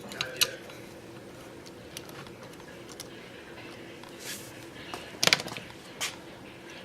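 Scattered small clicks and taps of tools and small parts being handled at a workbench during soldering work, with a quick cluster of sharper clicks about five seconds in, over a steady low hum.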